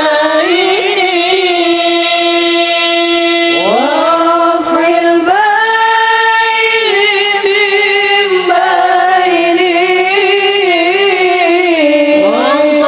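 A solo young male voice singing an Arabic devotional song through a microphone, holding long, ornamented notes with slides up into a new note about four seconds in and again near the end.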